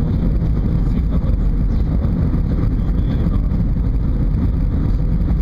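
Steady low rumble of airflow and engine noise heard inside an Airbus A320 passenger cabin on its landing approach.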